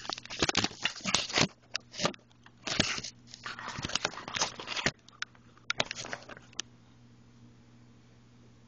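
Handling noise on the camera's own microphone: a dense run of rubbing, scraping and knocking as the camera is gripped, moved and set in place, stopping about six and a half seconds in and leaving a faint steady hum.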